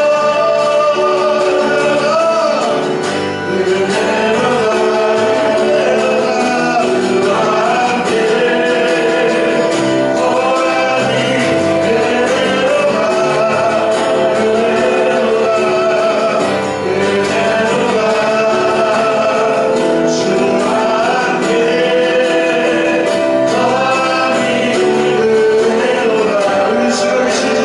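Church praise team singing a worship song, voices including men's, over instrumental accompaniment.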